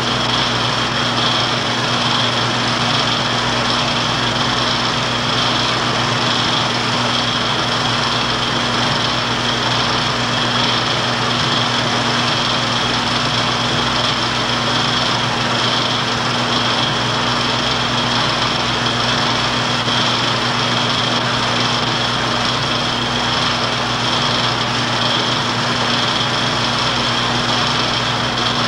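A film projector running steadily: a constant motor hum with the whir of the film mechanism.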